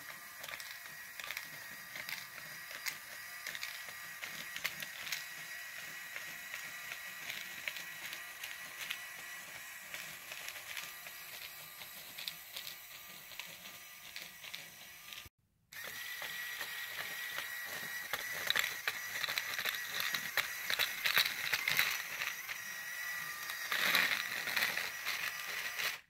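LEGO Mindstorms Robot Inventor 'Brick Eater' robot running: a steady motor whine, with many quick clicks and rattles as its rubber-finned scoop spins and flicks plastic LEGO beams into its tray. The sound cuts out briefly about halfway through, then returns with louder, denser clicking.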